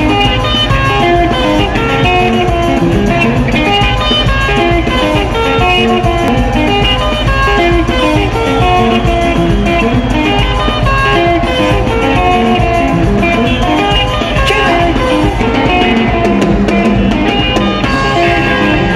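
Live Zimbabwean sungura (dendera) band music. Quick, interlocking electric guitar lines run over a steady bass and beat, loud and unbroken throughout.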